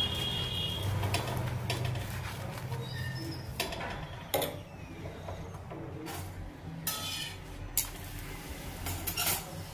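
Metal spoon and spatula clinking and scraping against a tawa as ghee is spread on a methi paratha and the paratha is turned. There are several sharp clinks in the second half, one with a brief metallic ring about seven seconds in, over a low steady hum.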